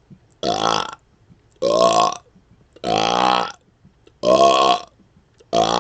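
A man burping on command: a string of five loud, pitched belches, each about half a second long and about a second and a bit apart, the last one starting near the end.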